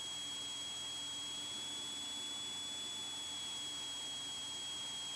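A steady, unwavering high-pitched electronic whine over a faint hiss, like electrical noise on a cockpit intercom or recorder feed; no engine sound comes through.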